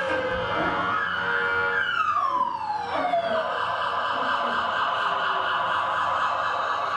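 Emergency-vehicle siren, played as a sound effect: a wail sliding down in pitch about two seconds in, then a fast warbling siren held steady.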